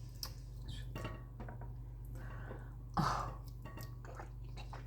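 Quiet eating noises, with small mouth and utensil clicks, and one short cough about three seconds in. The throat is irritated by pungent raw garlic.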